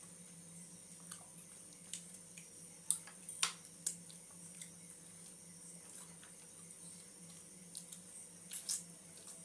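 Close-miked eating sounds: wet smacks and squishy clicks of chewing and of fingers mixing chicken biryani rice, a cluster of sharper clicks about three to four seconds in and again near the end. A steady low hum runs underneath.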